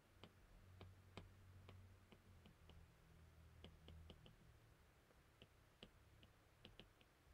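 Faint, irregular clicks of a stylus tip tapping on an iPad's glass screen during handwriting, several a second in places, over a faint low hum that fades about halfway through.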